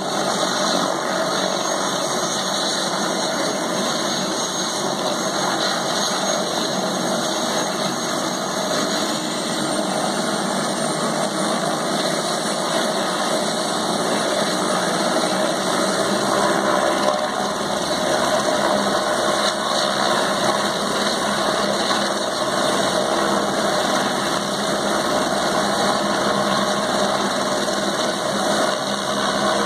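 Light single-engine turbine helicopter running on the pad at idle, its engine and turning rotor making a steady, even noise that neither rises nor falls.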